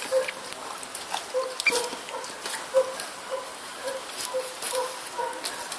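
German Shepherd chewing grapes, a run of irregular wet smacking clicks from its mouth.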